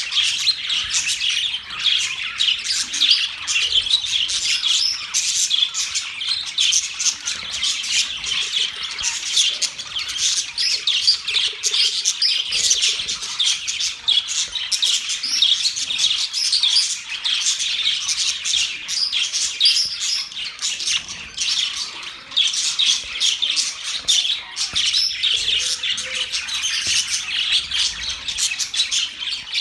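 Several budgerigars chattering and warbling together, a dense continuous stream of quick chirps and squawks.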